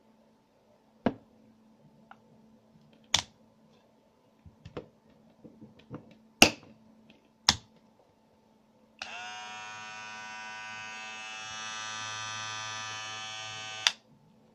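Kemei KM-680A grooming kit handled: several sharp plastic clicks as a head is fitted to the handle. Then the electric shaver's motor is switched on and buzzes steadily for about five seconds before it is switched off with a click.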